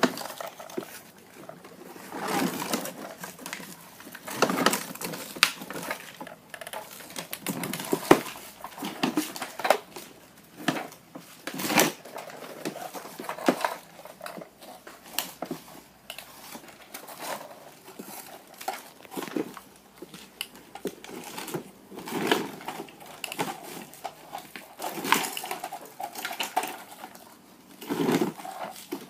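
Plastic toy vehicles being handled and pushed around: irregular clicks, knocks and clattering of plastic parts, with some rustling.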